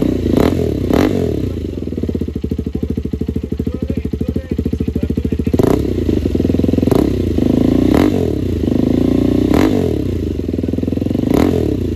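KTM 390 Duke's single-cylinder engine running through an SC Project full-system exhaust, idling and blipped sharply about seven times, with the revs falling back after each blip.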